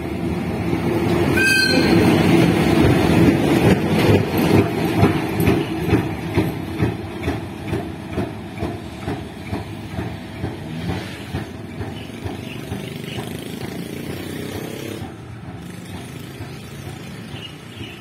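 Train rolling past on jointed track: the wheels clack over the rail joints about twice a second, loudest a few seconds in and fading over the second half. A short high squeal near the start.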